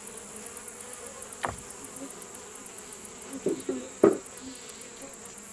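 Honeybees buzzing steadily around an open beehive. Twice, about one and a half seconds in and again about four seconds in, a single bee passes close with a brief louder buzz that sweeps in pitch.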